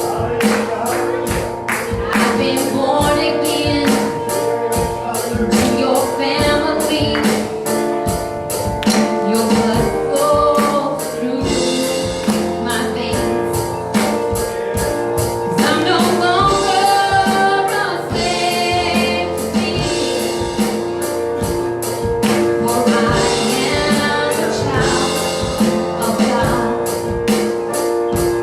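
Congregational gospel worship music: singers with a band and a steady tambourine-like beat.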